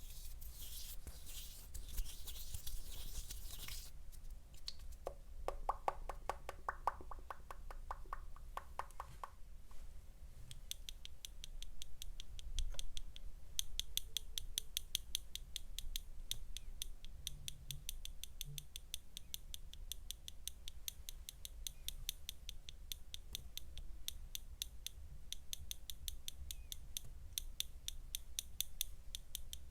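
A rustling hiss for the first few seconds, then a run of softer, lower clicks, then from about ten seconds a steady stream of crisp, sharp clicks, about four a second, typical of close-miked ASMR tapping or snipping.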